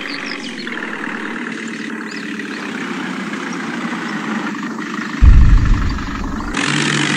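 Dubbed-in engine sound effect running steadily, then about five seconds in a loud, deep explosion boom lasting a little over a second.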